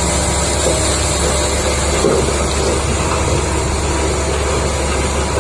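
Excavator engine sound effect: a heavy diesel engine running steadily with a deep rumble.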